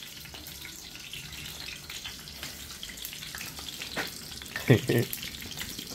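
Sausages frying in hot oil in frying pans on a gas stove: a steady crackling sizzle, with plastic spatulas working in the pans. A brief louder sound cuts in about three-quarters of the way through.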